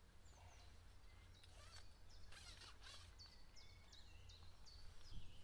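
Quiet ambience with a small bird calling: a quick run of about six short, high notes, each dropping in pitch, starting about three seconds in, over a low steady rumble.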